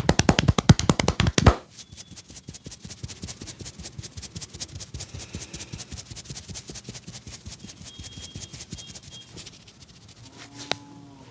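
Barber's hands drumming rapidly on the head in an Indian head massage, about ten strokes a second, loud, stopping abruptly about one and a half seconds in. Softer quick tapping and rubbing follows for several seconds, and a single sharp click comes near the end.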